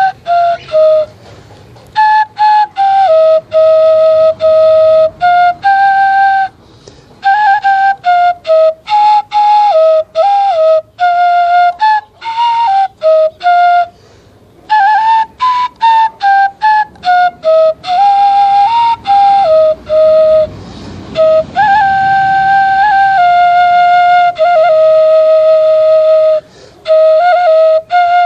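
Homemade bamboo native-style flute playing a slow melody, single notes held and stepping up and down in short phrases with brief pauses for breath.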